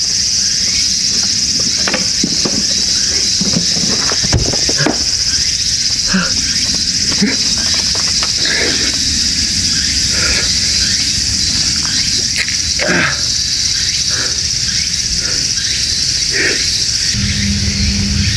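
Steady high-pitched chorus of insects, with scattered short knocks and clicks over it.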